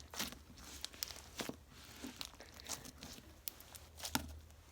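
Homemade slime with sequins mixed in being squeezed and worked by hand, giving irregular soft crackles and pops: the crunch that sequins give slime.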